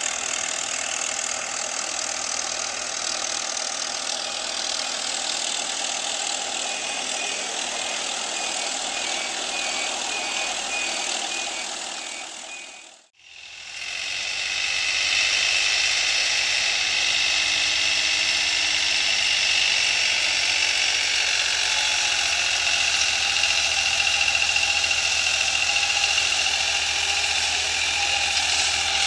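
Swaraj 963 FE tractor engine working under load, pulling a super seeder whose rotor is working through paddy stubble. About halfway through the sound fades out and comes back in, louder, from a New Holland 3630 tractor doing the same work with a super seeder.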